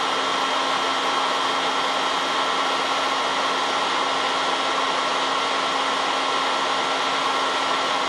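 Handheld hot air gun blowing steadily: a constant rush of air with a steady low hum underneath.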